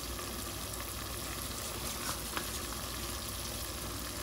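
Sofrito and recaito sizzling steadily in achiote oil in a pot on high heat, with a couple of faint taps about two seconds in.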